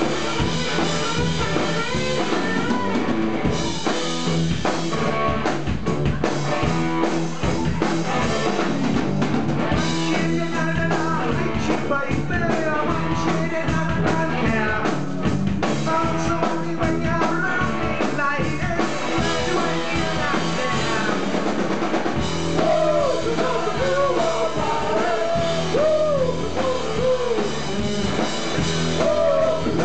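Punk rock band playing live: electric guitars, bass and a full drum kit, with singing heard most clearly near the end.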